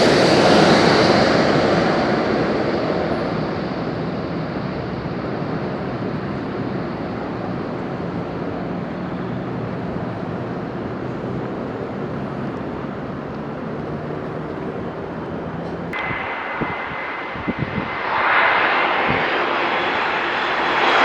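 Jet airliner engine noise fading away after a pass and settling into a steady rush. About 16 seconds in the sound changes suddenly, with a few light knocks, and then another jet's engine noise swells.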